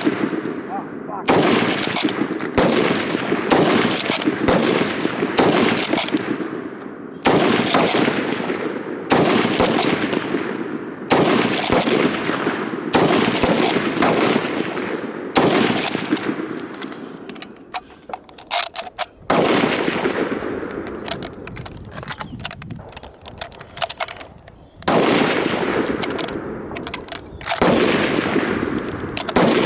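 Rapid fire from a bolt-action .303 Lee-Enfield No.1 Mk III SMLE rifle: loud shots with echoing tails, about one every one to two seconds. A little past halfway the shooting pauses for a few seconds of light metallic clicking as the rifle is reloaded, then the shots resume.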